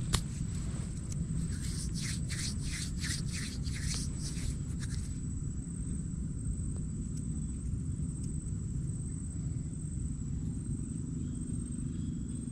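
A single hand clap, then hands rubbing together in a run of quick swishes, about two a second, for a few seconds, over a steady low wind rumble on the microphone.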